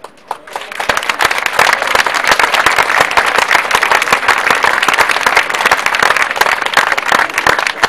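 Crowd applauding: many people clapping, swelling within the first second, holding steady, then thinning out near the end.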